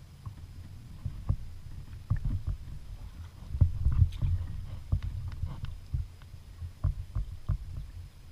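Irregular knocks and thumps on a fishing kayak's hull over a low rumble, as gear and the boat are handled.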